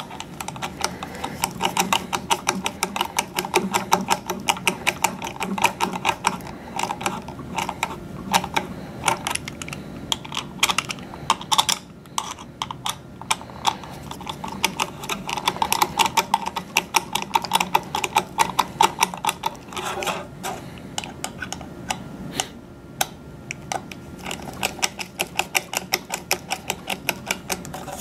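Ratcheting screwdriver clicking in rapid runs as screws are turned into a plastic radio mount, with short pauses between runs.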